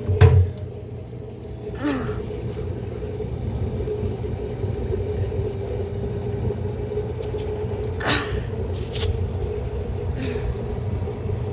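Washing machine running: a steady low rumble with a constant motor hum, a sharp knock just after the start and a short clatter about eight seconds in.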